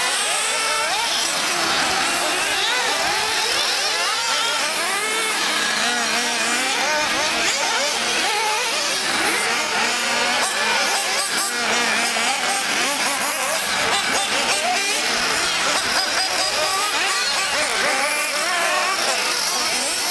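Several 1:8-scale nitro RC buggies' small two-stroke glow engines racing together, a high, buzzing whine whose pitch keeps rising and falling as the cars accelerate and brake through the corners.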